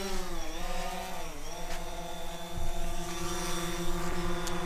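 DJI Phantom 4 quadcopter hovering, its four brushless motors and propellers giving a steady whine. The pitch dips and recovers twice near the start.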